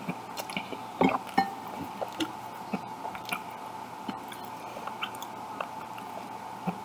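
A person chewing a hot dog close to the microphone: irregular wet smacks and clicks of the mouth, loudest about a second in. A faint steady hum lies underneath.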